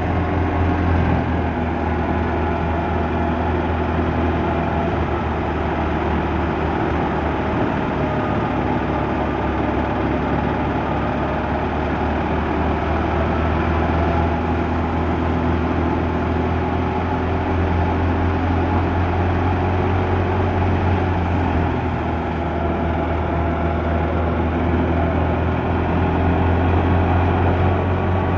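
Fiat 640 tractor's four-cylinder diesel engine running steadily under load, powering a wheat thresher that is threshing wheat, with engine and thresher blending into one continuous low hum.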